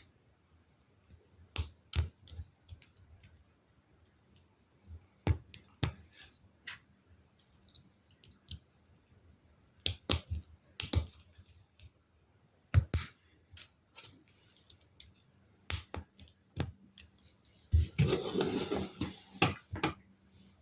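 Plastic LEGO Technic pieces clicking and clacking as they are handled and pressed together, in scattered sharp clicks. Near the end comes a denser rattle lasting about a second and a half, like loose pieces being sorted or shuffled.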